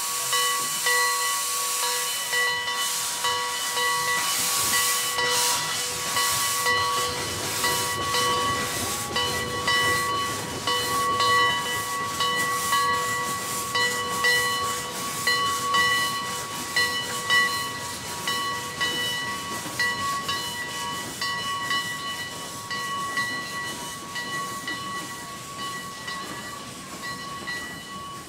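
Heisler geared steam locomotive No. 6 pulling away under steam: a fast run of exhaust chuffs over loud hissing from its open cylinder cocks, with a steady whistle-like tone underneath. The sound fades over the last several seconds as the locomotive moves off.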